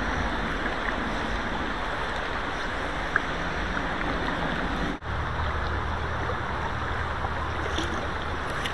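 Steady rush of river water flowing around a wading angler, with one sharp click about three seconds in and a brief dropout about five seconds in.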